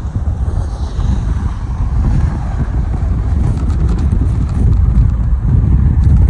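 Strong wind buffeting the microphone: a loud, steady low rumble that grows a little stronger about halfway through.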